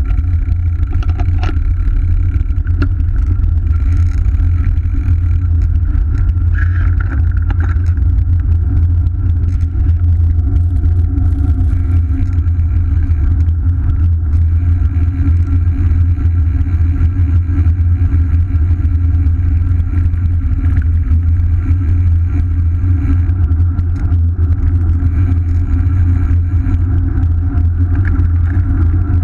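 Wind buffeting the microphone of a bicycle-mounted camera while riding, a loud, steady low rumble with road noise underneath.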